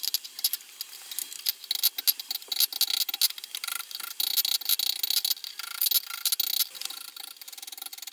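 Hammer blows on 10 mm square steel bar against an anvil face, forging a scroll: quick, irregular strikes, several a second, over a steady ringing tone.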